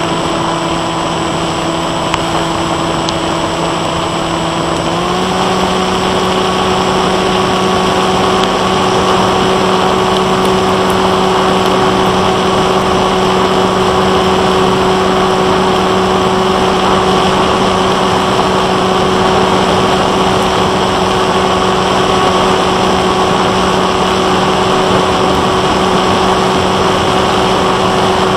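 Onboard sound of a Bixler 1.1 foam FPV plane in flight: its Turnigy 2826-6 brushless motor and 8x3.4 propeller give a steady whine over a constant rush of air noise. The whine steps up slightly in pitch about five seconds in as the motor speeds up, then holds steady.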